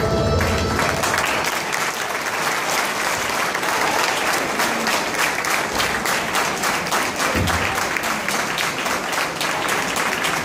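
An audience applauding in a hall, the claps building about a second in as the dance music stops, then holding steady.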